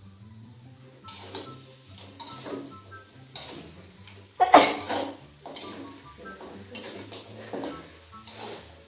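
Metal spatula scraping and clanking against a large aluminium wok as chicken pieces in spice paste are stirred, in irregular strokes with the loudest clank about halfway through. Background music with a low bass line plays underneath.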